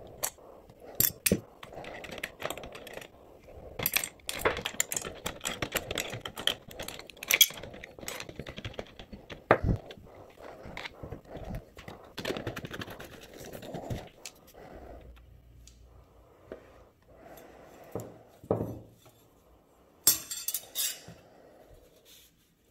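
Metal tongs clinking and scraping against a plastic jar and small steel block-plane parts. There is a quieter stretch past the middle, then a quick burst of metal clinks near the end as the parts are handled.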